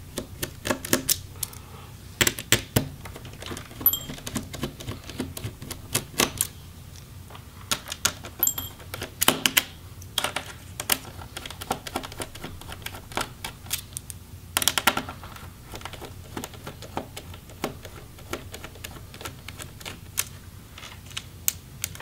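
Irregular small clicks and ticks of a Phillips screwdriver turning out a laptop's metal display hinge screws, with a few louder clusters of clicks.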